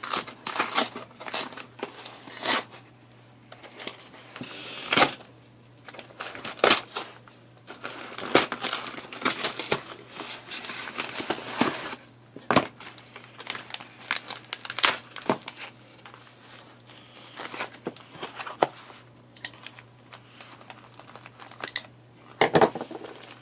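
Packaging being crinkled and torn at by hand, with irregular sharp crackles and snaps of plastic or paper, as someone tries to rip a parcel open without scissors.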